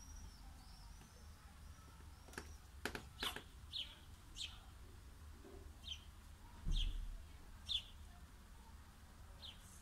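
Small birds chirping: short high chirps repeated every half second to a second, with a few sharp clicks around three seconds in and a low bump about seven seconds in, over a faint low rumble.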